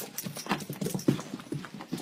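A dog's paws scrabbling and thudding on a hard floor: rapid, irregular knocks, several a second.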